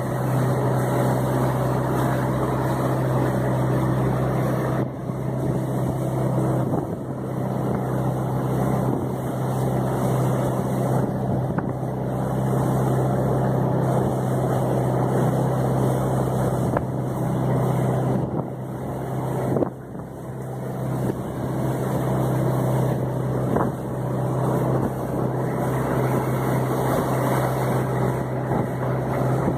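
The engine of a wooden Mekong river boat running steadily under way, a constant low drone over the rush of water along the hull. The sound dips briefly twice.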